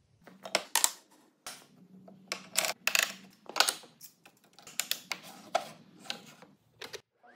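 Irregular clicks, taps and light knocks of a walnut block and other wooden pieces being handled and set down on the aluminium table of a stopped table saw, coming in quick clusters with short pauses.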